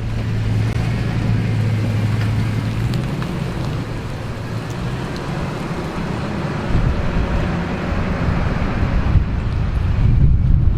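A motor vehicle running, with a steady low engine hum under a rushing road-and-wind noise; the low rumble gets heavier about two-thirds of the way through.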